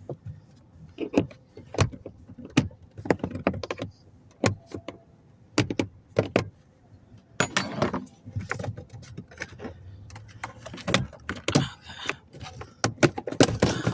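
Irregular clicks, knocks and rattles of hand tools and plastic trim pieces being worked on while screws are removed to reach the cabin air filter.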